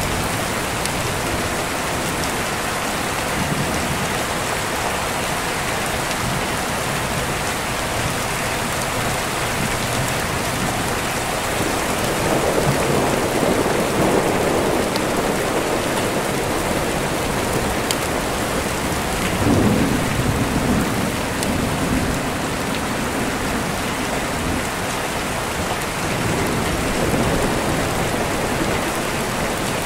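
Steady rain with deep rolling thunder: the rumble swells about twelve seconds in, again near twenty seconds, and more faintly near the end.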